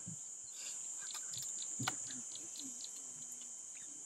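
Insects buzzing steadily in a high, even band, with short bird chirps scattered through and a single sharp knock a little under two seconds in.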